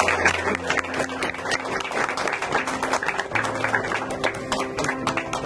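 A small group applauding with scattered hand claps, over steady background music.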